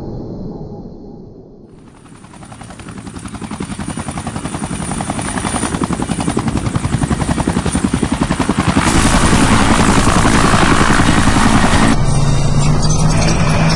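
Fast, even mechanical pulsing that builds up from quiet over several seconds, then holds loud and steady, with a change in tone near the end.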